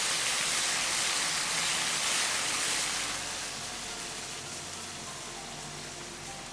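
Eggplant and green beans sizzling in a hot nonstick frying pan during a stir-fry. The sizzle eases off through the second half as the heat is turned off and the dish is done, and soft background music comes in faintly under it.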